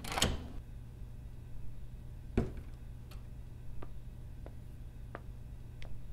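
Quiet room with a steady low hum, a sharp click about two and a half seconds in, then a run of light, evenly spaced footsteps, about one every 0.7 seconds, as someone walks in.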